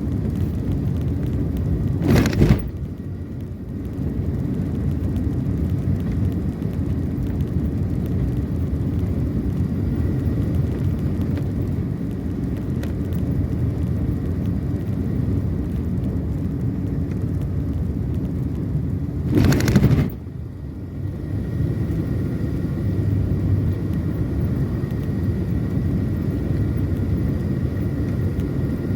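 Steady engine and road rumble of a car being driven, with two brief loud whooshes about two seconds and twenty seconds in.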